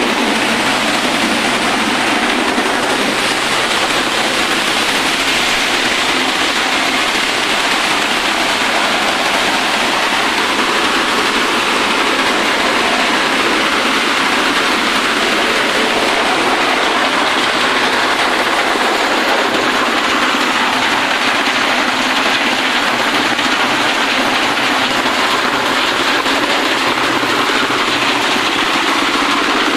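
Four-wheeled mechanical corn thresher running steadily while shelling cobs: a loud, dense, unbroken noise of the threshing machine with kernels and husks passing through it.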